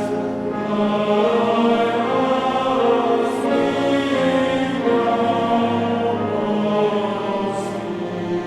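Choir singing slow, sustained chords.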